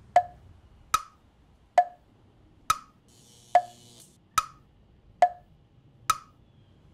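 Clock tick-tock sound effect: nine sharp ticks, a little faster than one a second, alternating a lower and a higher tick, counting off the seconds between a lightning flash and its thunder.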